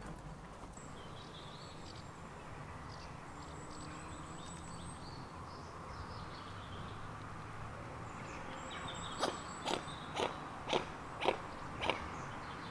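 Mute swan feeding at the water's edge, its bill snapping at plants in a run of six sharp clicks about two a second near the end, over a quiet low hum. Faint high bird whistles come earlier.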